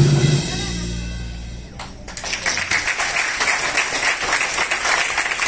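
Dance music ends on a held note that fades away. About two seconds in, an audience breaks into applause that keeps going.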